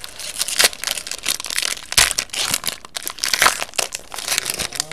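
Foil wrapper of a 2015 Topps Triple Threads football card pack crinkling and tearing as hands peel it open: a dense, uneven run of crackles.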